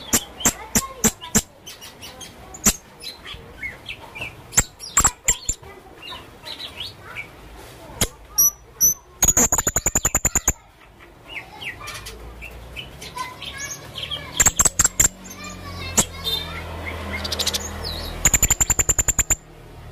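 Mixed bird calls on a song-training (masteran) recording: a string of sharp, high chirps and short whistled notes. Twice a fast trill of rapid, evenly spaced high notes runs for about a second, once in the middle and once near the end.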